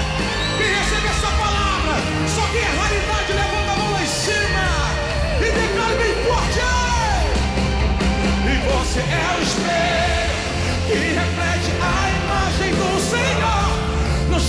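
Live band playing a loud Brazilian gospel pop-rock song with a heavy bass and drums, while the lead singer shouts and sings ad-libs over the music into a microphone.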